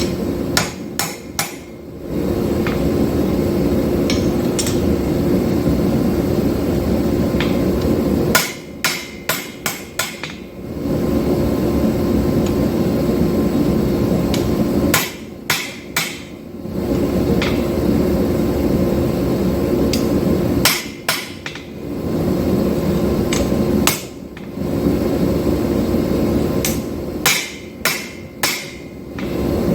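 Hammer blows on hot 5160 steel while forging and straightening a knife blank: short runs of three to six sharp metallic strikes every few seconds. Between the runs there is a steady rushing noise with a low hum.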